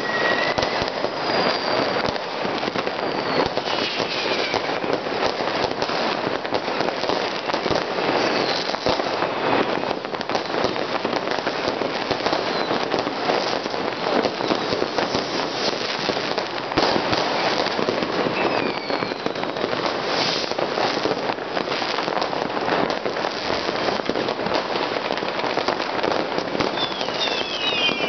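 Many fireworks, rockets and firecrackers going off at once in a continuous crackle of bangs, with a few falling whistles.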